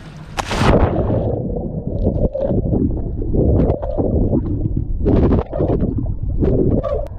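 A splash about half a second in, then muffled underwater sound: gurgling water and bubbles in uneven surges, heard by a microphone that has gone below the surface.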